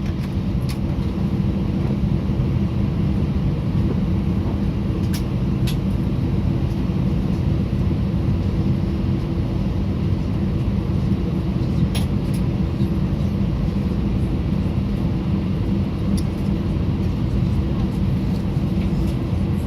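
Steady low rumble inside the cabin of an Airbus A320 on the ground with its engines running, engine noise and cabin air mixed, holding an even level. A few faint clicks or rattles come through now and then.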